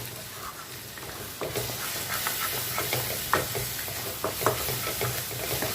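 A sweet scrambled-egg mixture with cashews and raisins sizzling in hot oil in a pan while it is stirred and scrambled, with irregular light scrapes and taps of the utensil against the pan. The sizzle gets louder about a second and a half in.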